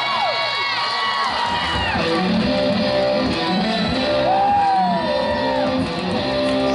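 Live rock band playing an instrumental passage, the electric lead guitar bending notes up and down over bass and keyboards. The bends are busiest in the first two seconds, then the notes are held longer over a steadier bass line.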